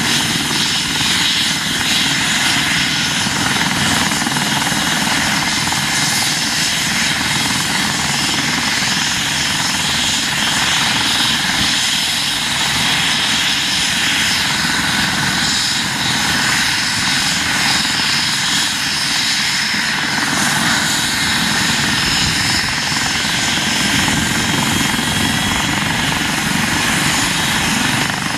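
Eurocopter EC135 P2 helicopter running on the ground with its main rotor turning: a steady turbine whine over rotor noise, with a deeper rumble growing about three quarters of the way through.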